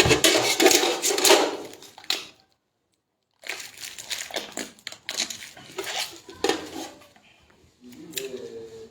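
Plastic crinkling and crushing in quick crackly clusters, with the sound cutting out completely for about a second partway through.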